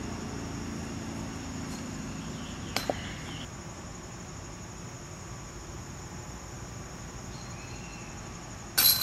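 Steady high chirring of insects, with a single sharp click about three seconds in. Near the end a flying disc strikes the hanging chains of a disc golf basket: a loud, sudden metallic jangle.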